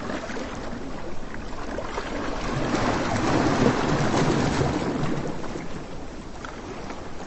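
Surf on a beach: a wave swells, breaks with a rush loudest around the middle, then washes back.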